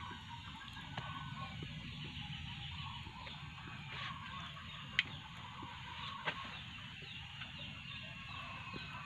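Birds calling, many short chirps throughout, over a low steady background noise. Sharp clicks come at about one, five and six seconds in.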